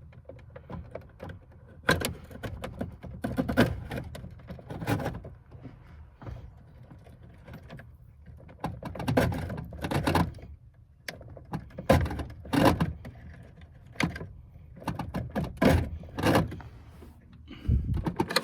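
A manual choke cable being worked by hand, with irregular clunks, clicks and rattles as it is pulled and pushed. The cable keeps popping out and won't seat back in.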